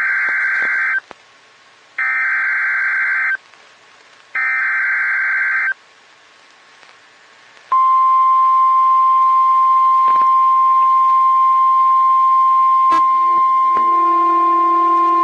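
Emergency Alert System header: three bursts of digital data tones, each a little over a second long and about a second apart. Then, from about eight seconds in, the steady single-pitch weather-radio attention tone that announces a new alert. A second, lower tone with several overtones joins it near the end.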